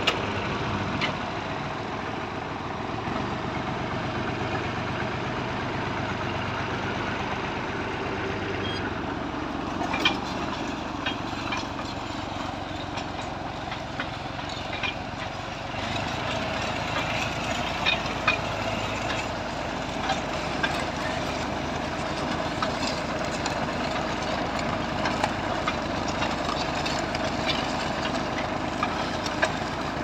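1964 Massey Ferguson 35 tractor engine running steadily as it pulls a mounted plough through the ground, with occasional sharp knocks and rattles.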